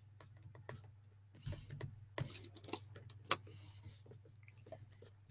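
Scattered light clicks and taps from a computer drawing setup, the sharpest about three seconds in, over a steady low hum.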